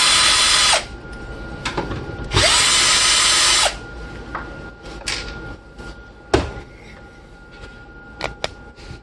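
Electric drill-driver running in two bursts of about a second each, its whine rising as it spins up and falling as it stops. Between and after them come light clicks and a sharp knock of hard parts being handled.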